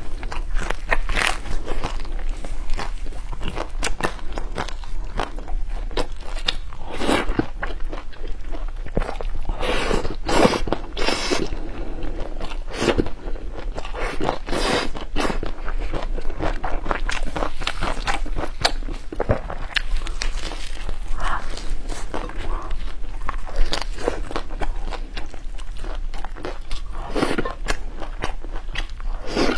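A person biting and chewing food close to the microphone, with many irregular crunches and wet mouth clicks.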